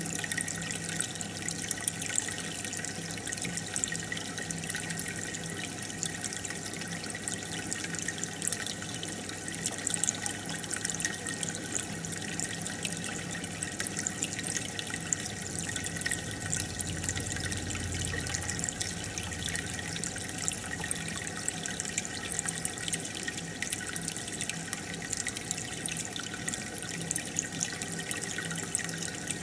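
Aquarium air bubbler and filter water: steady bubbling and trickling, with a faint steady hum underneath.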